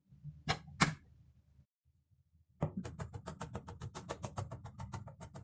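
Knife chopping fast on a cutting board: two single chops, then after a short pause a quick even run of sharp knocks, about seven a second.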